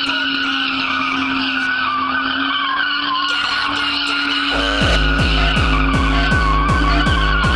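BMW E36's rear tyres squealing continuously as the car spins donuts on concrete. About four and a half seconds in, music with a heavy thumping beat starts underneath, about two beats a second.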